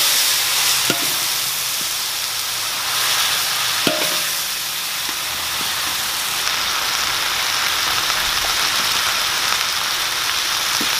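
Leafy greens sizzling with a steady hiss as they are stir-fried in a hot aluminium wok. The metal spatula knocks against the wok with a short ring a couple of times.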